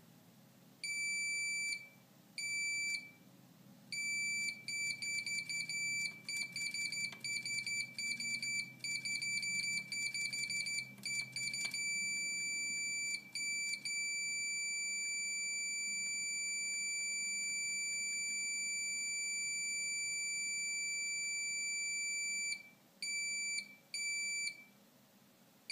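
A multimeter's continuity beeper sounds as the floppy drive's disk-in-drive switch is pressed and released. The steady high beep comes twice briefly, then as a fast stuttering run for several seconds, then holds unbroken for about nine seconds, and ends with two short beeps. The beep shows the switch closing as it should.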